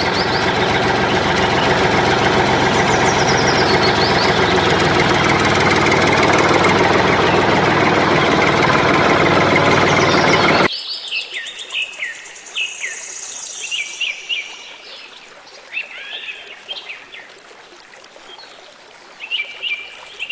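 A small engine runs loud and steady for about ten seconds, then cuts off abruptly. Birds are left chirping, in short rising and falling calls.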